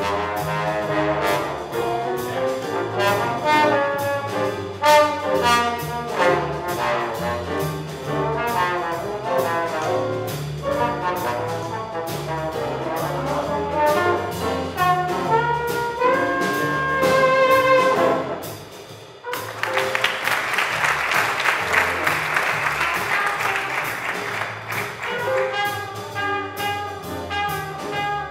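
A small jazz combo playing: horns over piano, a walking upright bass and drums. About two-thirds of the way in the horn lines drop out for several seconds under a dense wash of noise over the bass, then the horns come back in.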